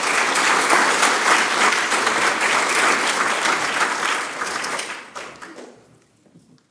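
Audience applauding, a dense clatter of many hands clapping at the close of a talk, dying away about five to six seconds in.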